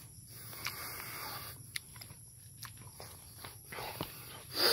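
Footsteps on a grassy dirt track with faint rustling and a few light clicks, and one short, louder rush of noise near the end.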